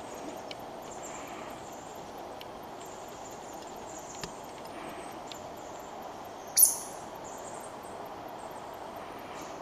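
Steady outdoor background hiss with a few faint, high ticks, and one sharp, loud click about two-thirds of the way through.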